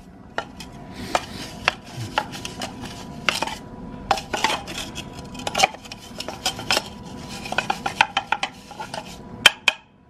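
Stiff-bristled brush scrubbing ice out of a black plastic water heater exhaust elbow: irregular scraping strokes mixed with many sharp plastic clacks and knocks. It is a frozen, ice-clogged exhaust vent being cleared.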